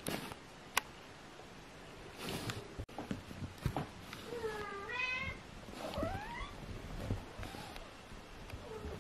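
British shorthair kittens meowing. There are two high meows rising in pitch around the middle and a short one near the end, with soft scuffling of small paws on fabric and a sharp tick about a second in.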